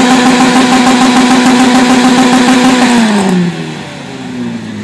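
Tuned car's engine and exhaust held at high revs with a loud, steady note, then let go about three seconds in, the pitch falling back toward idle.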